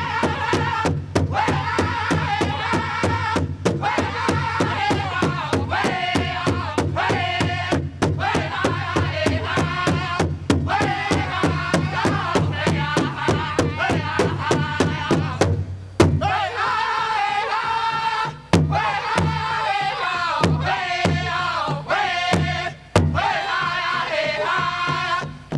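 Powwow drum group singing: men's voices in chorus over a steady, fast beat on a large shared drum. About sixteen seconds in the drumming breaks off briefly, then goes on as fewer, harder strikes under the singing.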